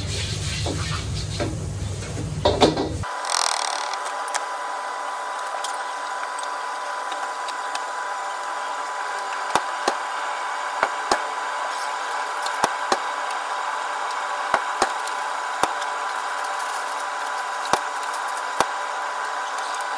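A bamboo wok brush scrubbing a hot, steaming wok with water: scraping and knocking against the iron. About three seconds in, the scrubbing stops and gives way to a steady kitchen hiss with a faint steady whine, broken by scattered soft clicks.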